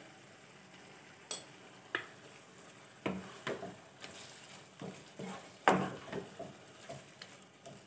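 Wooden spatula stirring thick chicken masala in a non-stick kadai, scraping and knocking against the pan. Only a couple of light taps for the first few seconds, then irregular stirring strokes from about three seconds in.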